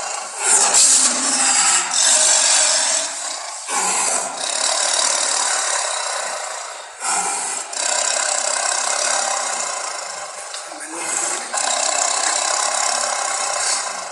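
Harsh, raspy growls and snarls used as saber-toothed cat sound effects, coming in long rough bursts with short breaks about 4, 7 and 11 seconds in.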